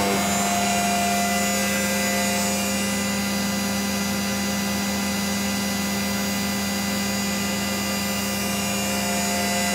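Mazak Integrex 300-IIIS's milling spindle spinning free at 12,000 rpm with no cut: a steady machine whine with a strong low hum and thin higher tones, holding speed without change.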